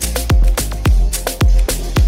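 Music with a steady, heavy kick drum a little under twice a second, each beat dropping in pitch, and sharp percussion hits between the beats.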